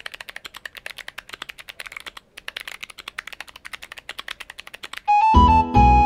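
Fast typing on a mechanical keyboard with Chosfox & Kailh BOX Arctic Fox click-bar switches: a rapid stream of crisp clicks, one per keystroke, with a brief pause a little past two seconds. About five seconds in, the clicking stops and louder music with piano-like notes starts.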